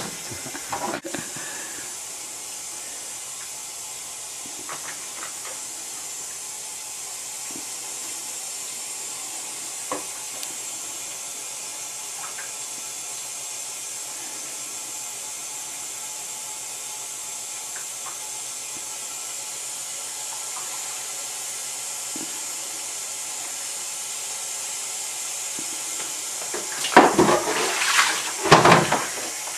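Water running steadily from a hose onto a carbon print in a developing tray, a continuous hiss. A couple of louder noisy bursts come near the end.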